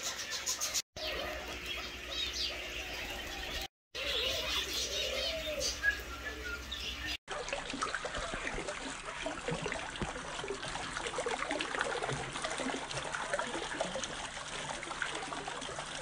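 Caged birds chirping and calling, with three brief dropouts where the clips are cut. From about seven seconds in, a small fountain splashes and trickles into its basin while the birds go on calling.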